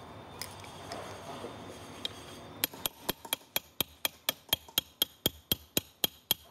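A run of sharp metallic clicks, evenly spaced at about four a second, starting about two and a half seconds in.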